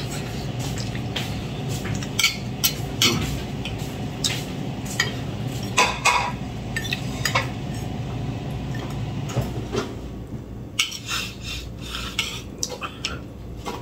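Fork and spoon clinking and scraping against a plate and a soup bowl while eating, in irregular sharp clicks over a steady low hum.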